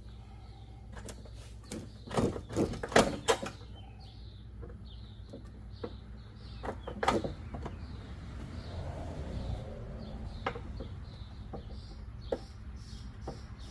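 Metal knocks and clanks from hand work on a riding lawnmower's deck linkage, a cluster of them about two seconds in and another about seven seconds in, with scattered lighter clicks and faint repeated high chirps.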